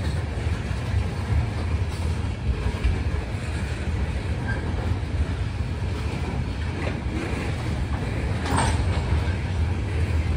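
Tank cars of a freight train rolling past: a steady low rumble of steel wheels on the rails, with one brief sharper noise about eight and a half seconds in.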